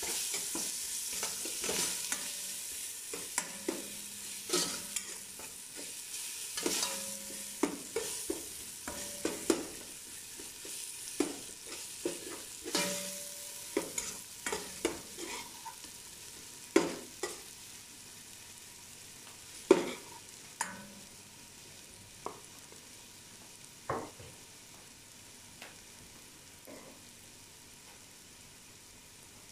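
Minced garlic sizzling in oil in an enamel pot, with a metal spoon scraping and knocking against the pot as it is stirred. The heat has been turned down so the garlic doesn't burn, and the sizzle dies away gradually while the spoon knocks thin out in the last few seconds.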